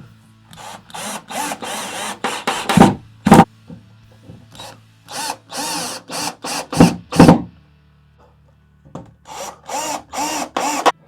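A power drill running in short trigger bursts, its motor speeding up and slowing with each one, in three groups of several bursts each. This is consistent with screws being driven into wood.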